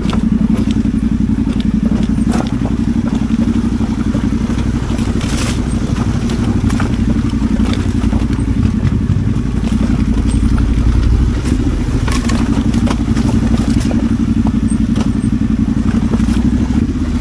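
Adventure motorcycle's parallel-twin engine running at a steady pace, with scattered light clicks and clatter over it.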